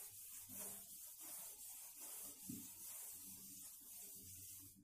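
Blackboard eraser rubbing over a chalkboard in repeated back-and-forth strokes, wiping chalk off: a faint, hissy scrubbing.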